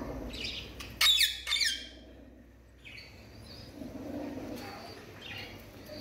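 Parrots squawking: two loud, harsh calls about a second in, each falling in pitch, with a few fainter short calls later.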